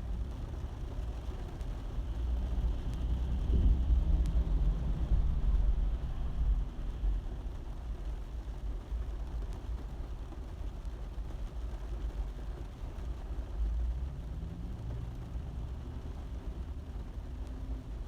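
Rain falling on a car's roof, heard as a steady wash of noise with a heavy low rumble. The rumble swells louder about three to six seconds in and settles again.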